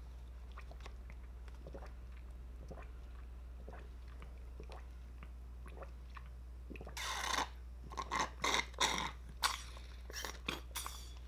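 Soy milk sucked through a straw from a small paper drink carton: mostly quiet at first, then from about seven seconds in a run of short noisy slurps and crackles as the carton empties and is squeezed.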